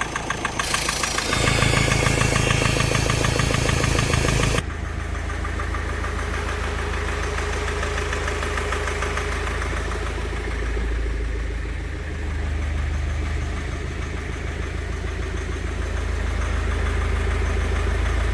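Mahindra Scorpio mHawk diesel engine running with a rhythmic knock, about five a second, that the mechanic traces to cylinder 2 not fully burning its diesel. About half a second in a much louder rushing noise takes over for around four seconds, then the engine runs on steadily with slight swells in speed.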